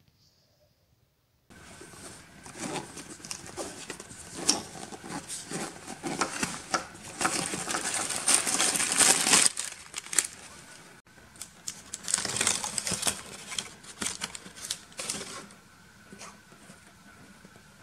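Rustling, crinkling and clicking of a hand rummaging in a black fabric bag, starting about a second and a half in, in irregular bursts that are loudest in the middle and die down to quieter handling near the end.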